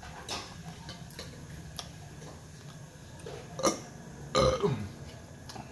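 A man burps loudly about four and a half seconds in after finishing a meal, the burp falling in pitch. A few short clicks come before it.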